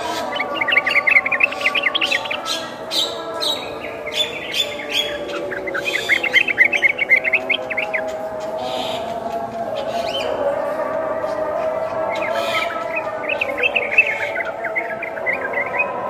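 Yellow-vented bulbul and Javan myna calling at the same time: three bursts of quick chirping notes over a steady, wavering lower tone, with sharp clicky notes scattered through.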